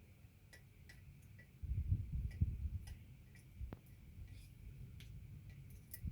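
Scattered light metallic clicks and ticks from bicycle parts being handled and taken apart, with a low bumping rumble about two seconds in.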